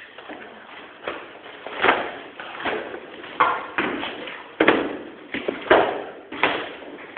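Irregular knocks and thuds from flooring installation work, about nine over several seconds, a few of them sharper and with a short ring.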